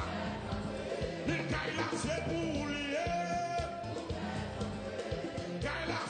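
A man singing a gospel song into a microphone over a live band playing with a steady beat.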